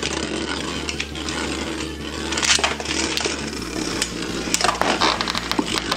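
Two Beyblade Burst spinning tops, Inferno Ifrit and a Valkyrie Gravity Extreme attack combo, whirring against each other in a clear plastic stadium: a steady spinning rush broken by many sharp plastic clacks as they collide and scrape off each other and the stadium wall, in clusters about two and a half, four and a half and five seconds in.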